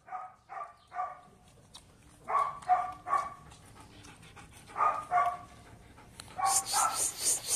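A dog barking in short, high barks, in clusters of two or three with pauses between.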